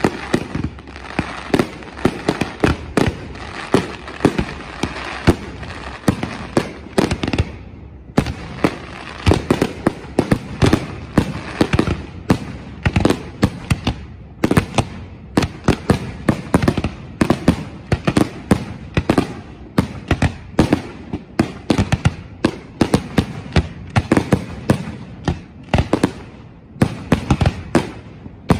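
Aerial fireworks display: a rapid barrage of shell bursts, several bangs a second, with a brief lull about eight seconds in.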